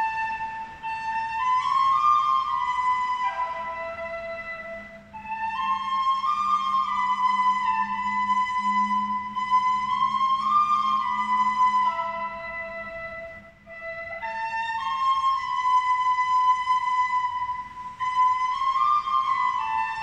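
A flute-like melody of held notes stepping up and down, its phrases repeating with three short breaks. A faint low hum sits under it for several seconds in the middle.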